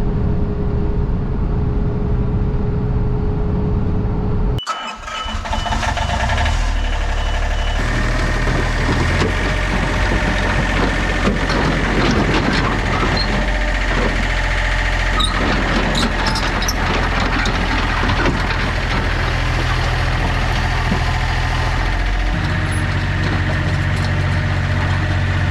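Truck engine and road noise while towing down a hill. Then a small excavator's diesel engine runs at a steady speed, with scattered clanks and clicks. About 22 s in its engine note steps down.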